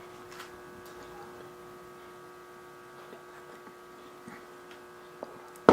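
Quiet room with a steady electrical hum of a few pitches and a couple of faint ticks, ending in one sharp knock.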